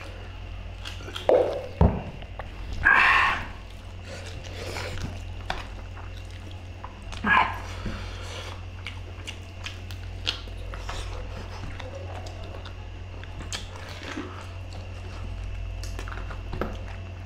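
Two people eating rice and buffalo curry with their hands: chewing, mouth noises and small clicks of fingers working the food. A few short loud bursts come about one and a half, three and seven seconds in, over a steady low hum.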